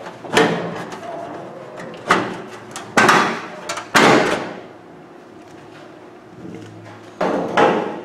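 Sheet-metal outer cover of a microwave oven being worked loose and slid off the chassis: a series of metallic knocks and scrapes, loudest around three to four seconds in, with a quieter stretch before two more near the end.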